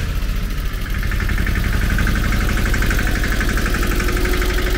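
Vehicle engine idling close by: a steady low rumble with a fast, even firing pulse, a higher pulsing tone joining about a second in.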